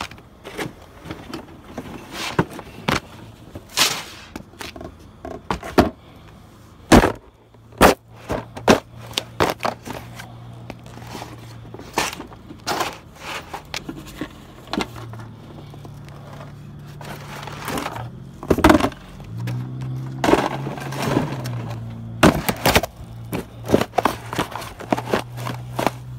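Cardboard shoe boxes being stomped flat under boat shoes: repeated sharp crunches, cracks and scrapes as the cardboard folds and tears. From about a quarter of the way in, a low steady hum runs underneath.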